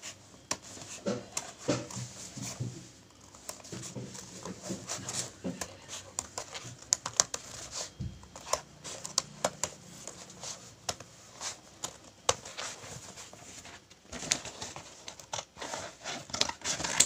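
Scissors cutting through cardboard: an irregular string of crunching snips as the blades bite through the board.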